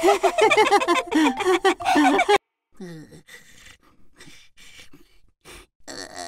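Cartoon characters' voices: a burst of high, bouncy giggling and laughing that cuts off abruptly about two and a half seconds in. It is followed by fainter, scattered vocal sounds without words.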